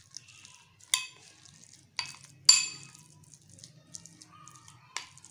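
Metal spoon clinking against a glass mixing bowl while stirring a thick chicken-and-mayonnaise mixture: four sharp, ringing clinks, the loudest about two and a half seconds in.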